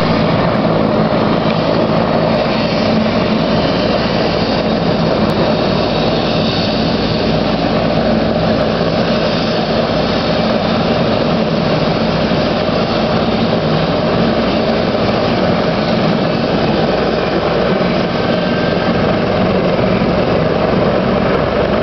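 Air ambulance helicopter running steadily on the ground with its engines and rotors turning, ready for take-off.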